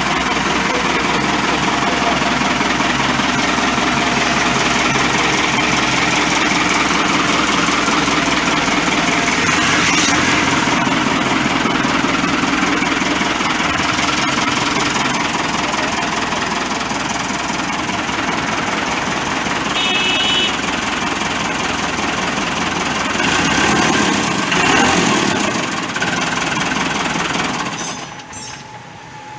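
A new Ford 5880 tractor's diesel engine idling steadily. It swells slightly a couple of times, and the level drops sharply about a second before the end.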